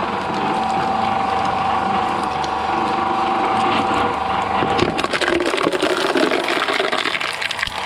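Industrial shredder running with a steady motor whine while its blades crush and crack material; about five seconds in the crunching grows busier, with many sharp cracks.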